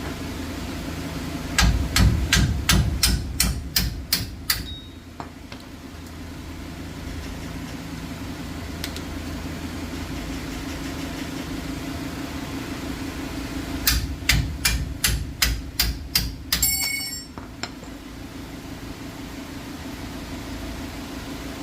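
A hammer striking metal in two quick runs of about eight to ten blows each, roughly three blows a second, with a bright metallic ring. A steady low hum runs underneath.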